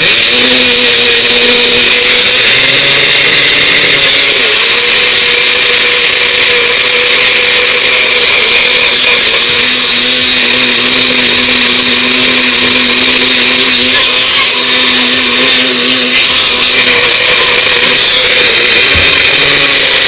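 Bullet-style personal blender starting abruptly and running steadily at full speed, grinding granulated sugar and cornstarch into powdered sugar.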